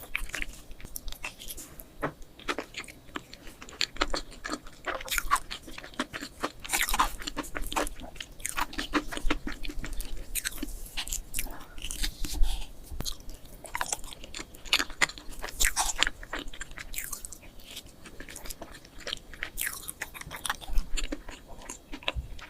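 Close-miked mukbang eating: a person chewing and biting food, with a dense, irregular run of sharp wet mouth clicks and crunches.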